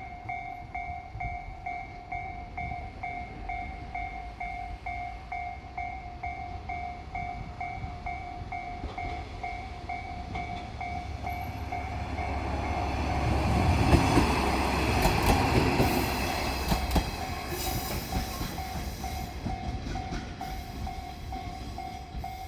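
Japanese level-crossing warning bell ringing in a fast, even rhythm throughout, while a diesel train passes over the crossing. The train's engine and wheel rumble swells to its loudest a little past the middle, with wheel clacks over the rail joints, then fades.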